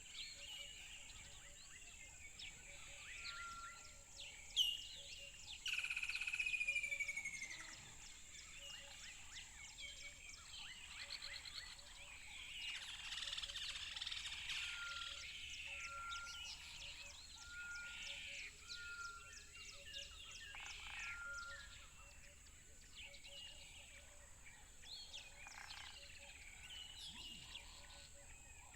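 Mixed wild birds chirping and singing together, many short overlapping calls and whistles. A louder call with a falling whistle stands out about six seconds in.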